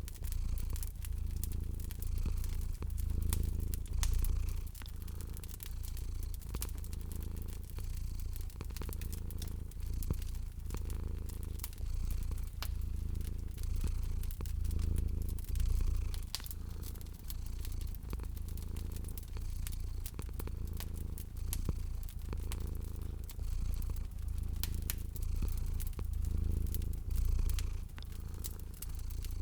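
A domestic cat purring, a low steady rumble that swells and fades with each breath, over the frequent small pops and crackles of a wood fire.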